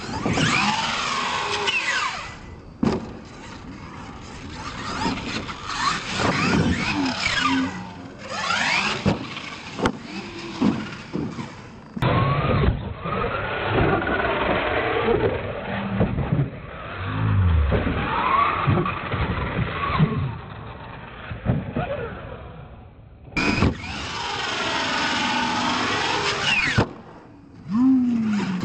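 Radio-controlled monster truck's electric motor and drivetrain whining, rising and falling over and over as the throttle is worked, with a few sharp knocks from the truck landing and tumbling on the ramps.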